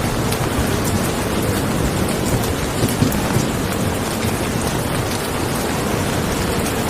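Steady rain falling, with scattered individual drops ticking over a constant low rumble.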